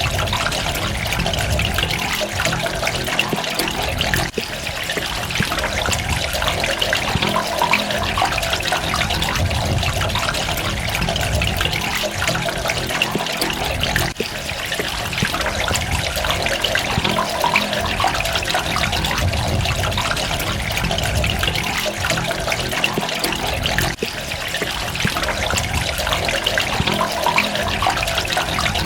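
Water running and trickling steadily, with a dense patter of droplets. The level dips briefly about every ten seconds.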